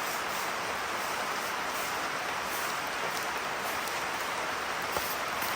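Rain pouring down in a steady hiss during a rainstorm, with one sharp tap about five seconds in.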